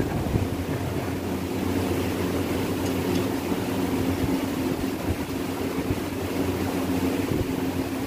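A steady low mechanical hum, like a motor or fan running without change.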